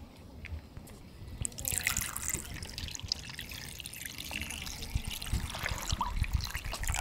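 Water pouring and trickling, starting about a second and a half in and running on with small splashes.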